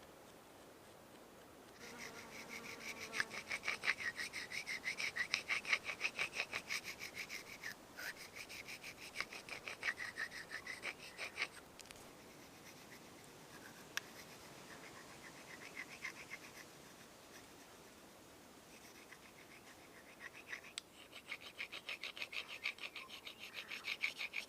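Tracker-style knife blade being stroked over a sharpening stone: rapid, rhythmic scraping strokes in a long run, a quieter stretch, then another run near the end.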